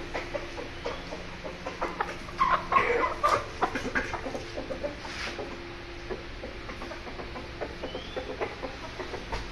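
Aseel chickens clucking, with a cluster of short clucks between about two and four seconds in.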